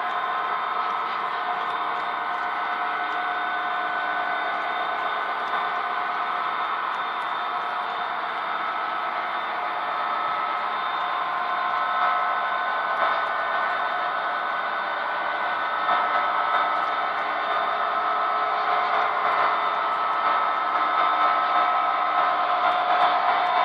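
Model-railroad cylindrical grain hopper cars rolling past on the track: a steady metallic rolling whir with faint ticks, growing slightly louder near the end.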